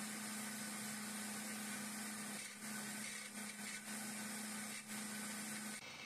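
Electric countertop blender running at top speed, a steady whirring hum as it purées a thin creamy sauce. Near the end the sound drops and changes.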